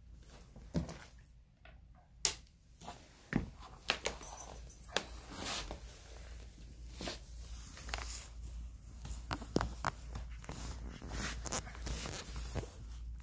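Scattered light taps and rustling from a polydactyl cat moving about on a hardwood floor, with a fluffy wand toy swishing and brushing close by. A few sharper clicks come in the first half, and the rustling grows denser later.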